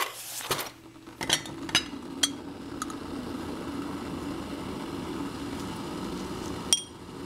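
Kettle heating water: a steady rushing noise that sets in about a second in. Several light sharp clinks in the first three seconds and one more near the end.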